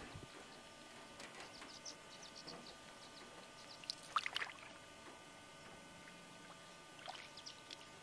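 Small water splashes and drips around a canoe drifting on the lake, in scattered short strokes, the loudest cluster about four seconds in.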